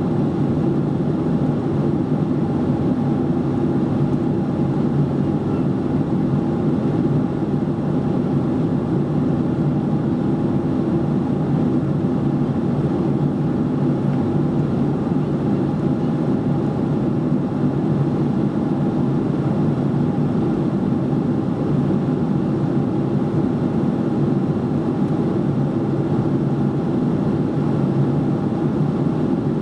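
Steady cabin noise of a Boeing 737-800 airliner in flight: the even drone of its CFM56 jet engines and the airflow over the fuselage, with a thin steady tone above it.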